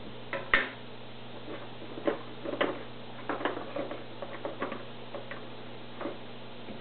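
Canister filter pads and the plastic media basket being handled: a sharp click about half a second in, then irregular light clicks and knocks, over a steady low hum.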